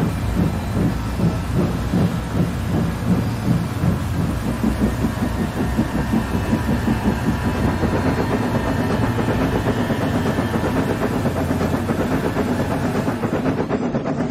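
Simulated steam locomotive running in a train-simulator animation, chuffing in a rapid, steady rhythm with rail clatter.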